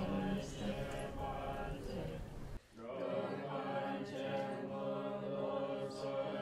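Group of Tibetan Buddhist practitioners chanting prayers together in steady unison. The chant breaks off for a moment about two and a half seconds in and then resumes.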